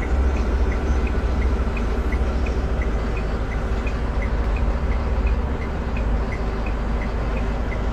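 Hyundai Mighty EX8 GTL truck's D4CC 2.9-litre diesel idling, heard from inside the cab as a steady low rumble, with a light high tick repeating about three times a second.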